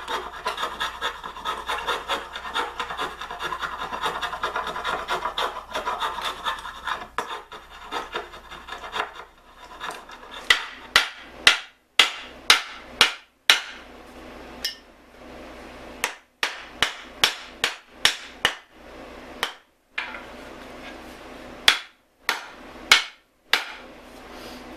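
A spokeshave shaving the oak axe handle in quick, rough strokes for about nine seconds. Then a wooden mallet knocks about twenty sharp blows in short runs, seating the axe head on the handle to check the fit.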